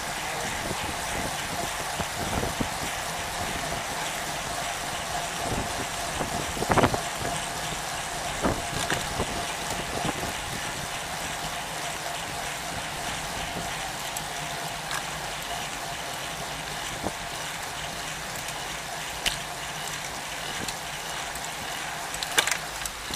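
Steady rushing tyre and wind noise of a road bicycle riding in a group of cyclists, with a few sharp clicks and knocks, the loudest about seven seconds in.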